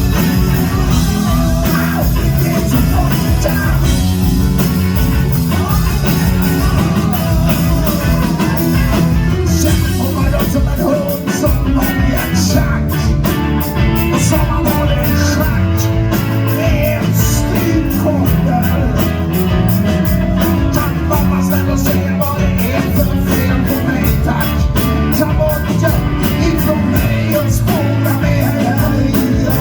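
Live rock band playing loud, with singing and a steady drum and cymbal beat.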